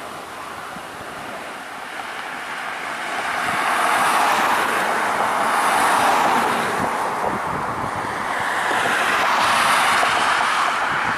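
Regional jet's rear-mounted turbofan engines at takeoff power during the runway roll, a rushing noise that builds about three seconds in and swells several times, with wind buffeting the microphone.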